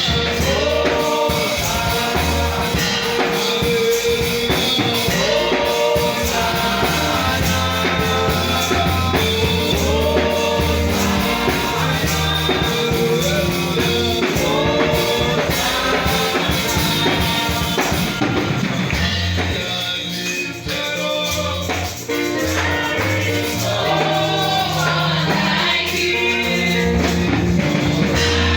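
Gospel praise music with singing over bass guitar, drums and tambourine, with a short drop in the band about two-thirds of the way through.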